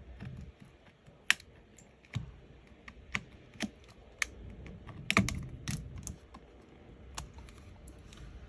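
Small repair tools clicking and tapping against an iPhone 13 Pro as its heated, cracked screen is worked open: scattered sharp clicks at irregular intervals, with a short cluster about five seconds in.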